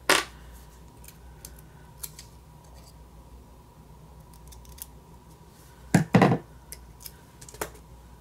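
Scissors snipping through a paper sticker sheet: one sharp snip right at the start, then a couple more short snips close together about six seconds in.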